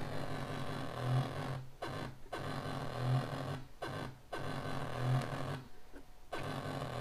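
Analog synthesizer playing a slow, looping pattern: a steady noisy hiss with a low tone that swells about every two seconds, cut by several brief dropouts.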